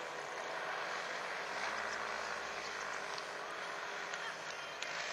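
Parasport Fun-Alu 125 paramotor's engine and propeller droning steadily in flight.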